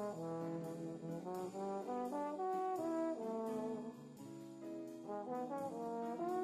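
Instrumental background music: a melody of held notes over a steady beat.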